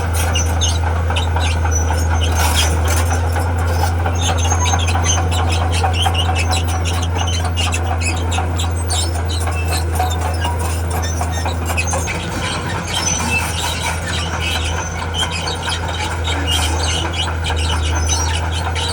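Crawler bulldozer working: a steady diesel engine drone under the rapid squeaking and squealing of its steel tracks as it moves. The engine note wavers and drops about twelve seconds in, then steadies again near the end.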